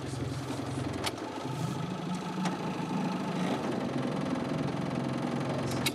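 Mercury outboard motor running steadily on a small boat; its note rises a little about a second and a half in.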